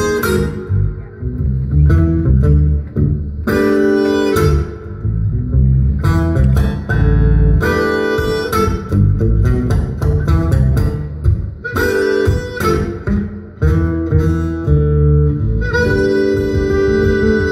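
Live blues harmonica and guitar duet. The harmonica is played cupped to a microphone in phrases that come and go, over continuous plucked guitar.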